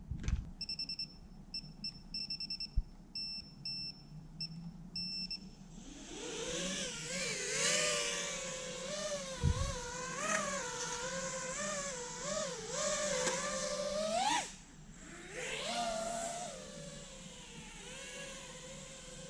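Short high electronic beeps in a repeating pattern, then a 5-inch FPV racing drone's brushless motors spinning up into a whine that rises and falls with the throttle, with a thump partway through. Near the end the whine cuts out briefly and spins back up, then holds steadier.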